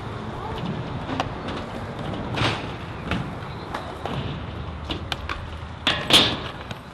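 Skateboards rolling on concrete with repeated sharp clacks and knocks, the loudest impact about six seconds in.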